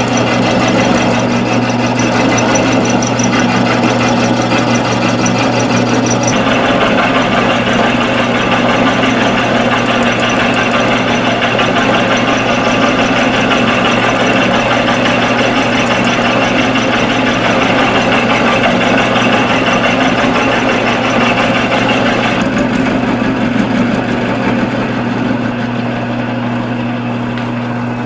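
Bench-top mill-drill running with its end mill taking a steady cut in a heavy-truck flywheel: a steady motor hum under dense cutting noise. The cutting noise fills out about six seconds in and eases off near the end.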